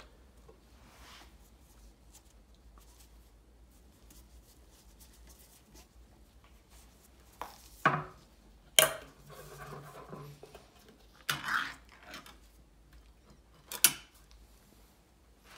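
Ring-pull metal can being opened by hand: after a quiet stretch, sharp clicks as the pull tab cracks the lid, a rasp as the metal lid is peeled back, and a last sharp snap as it comes free near the end.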